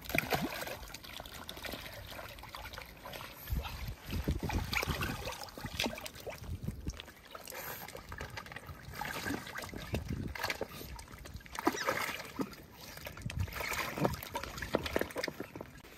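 Water splashing and sloshing in a small pool as two otters swim and play-wrestle, with irregular splashes throughout.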